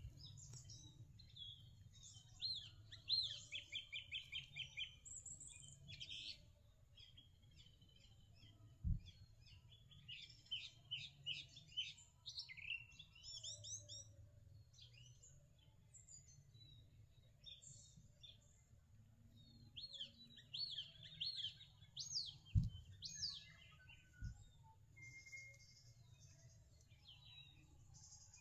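Wild birds chirping and singing, a mix of short chirps, rising and falling whistles and a fast trill of repeated notes a few seconds in. A few soft low thumps stand out, at about nine seconds and twice between 22 and 25 seconds.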